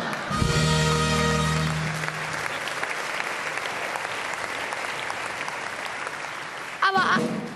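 A band plays a short held chord, the Tusch that answers a punchline at a German carnival session, for about a second and a half, then the audience keeps clapping for several seconds.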